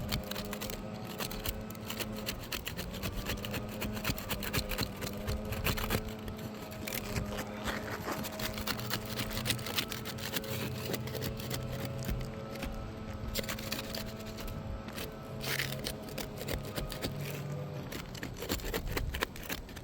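Asphalt roof shingles being prised up to break their adhesive seal: repeated scraping and crackling, over a steady low hum.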